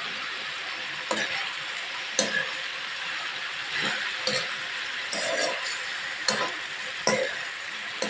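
Taro stalks frying in a wok with a steady sizzling hiss, while a metal utensil stirs them, scraping and knocking against the pan about once a second.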